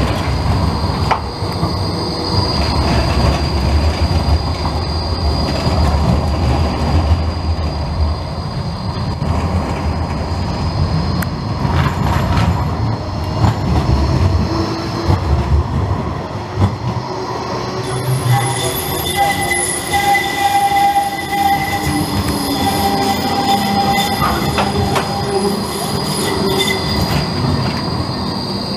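Bombardier Flexity trams passing close by on street track: the wheels rumble on the rails and squeal with a steady high tone on the curve. About two-thirds of the way through, the whine of the electric drive comes in, its tones sliding up and down in pitch as a tram changes speed.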